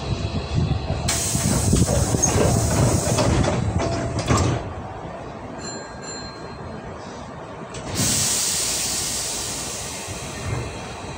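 Hankyu 8000 series electric train running, heard from inside the front car. A loud hiss joins the running noise, stops abruptly about four and a half seconds in, then returns suddenly near eight seconds and fades away.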